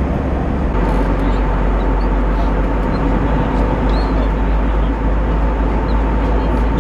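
Steady, loud, low rumble of airliner cabin noise in an Airbus A320, with a faint steady hum over it that begins about a second in.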